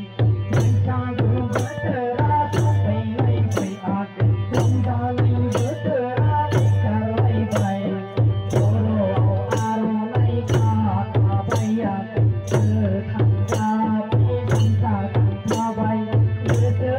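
Bodo folk music played live: a kham barrel drum beating a steady rhythm under a harmonium melody, with a bright tick on the beat about twice a second.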